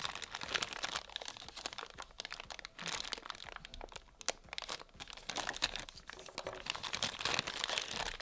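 Packaging being handled during an unboxing: continuous irregular crinkling and crackling, with occasional sharper crunches.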